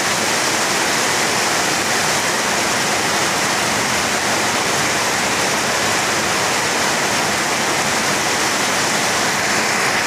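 Heavy rain falling steadily and hard on trees and waterlogged ground.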